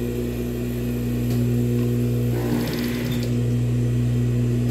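Industrial sewing machine running as a ruffle is stitched on: the steady hum of its motor, with a brief higher rattle about halfway through.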